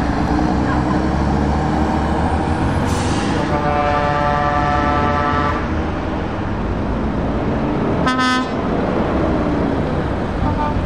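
Heavy truck diesel engines running as a Scania 560S V8 tractor unit pulls past. A truck air horn sounds one long blast about four seconds in and a short sharp blast about eight seconds in.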